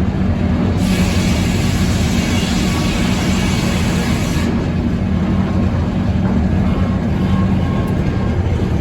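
Sawmill machinery running steadily with a low hum. A hissing rush comes in about a second in and stops about four and a half seconds in.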